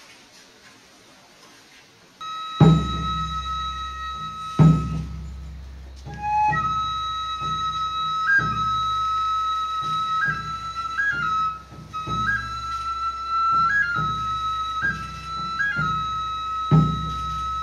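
Gagaku shrine music: a Japanese bamboo flute starts about two seconds in and holds long high notes with brief upward grace-note flicks. Low drum strikes sound a few times, near the start and again near the end.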